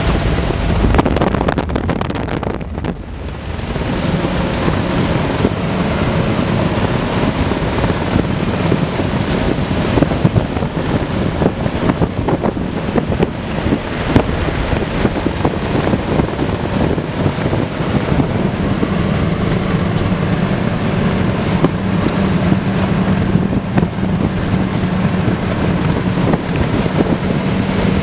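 Vehicle driving fast over desert sand, heard from inside the cab: a steady engine drone under loud wind buffeting the microphone, with frequent knocks and rattles from the jolting ride.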